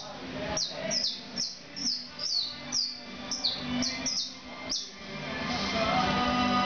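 Caged canary calling with a run of quick, high chirps, each sliding downward, about two a second, stopping about five seconds in. Background music grows louder after the chirps stop.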